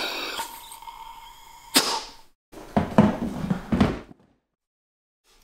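A ringing intro sound effect fades out and ends in a sharp hit. Then come a few dull thunks and knocks as the seat of a Sea-Doo GTR 215 personal watercraft is unlatched and lifted off.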